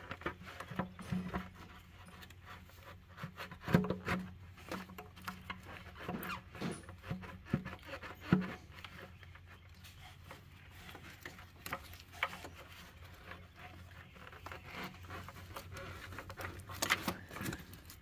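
Hands working around an engine's intake manifold and wiring harness: scattered clicks, taps and rattles of plastic and metal parts, with two louder knocks about four and eight seconds in. A steady low hum runs underneath.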